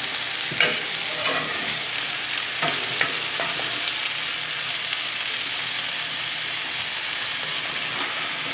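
Fresh spinach sizzling steadily as it wilts in a hot frying pan, the water it lets out cooking off. A few short knocks and scrapes of a wooden spoon stirring it in the first few seconds.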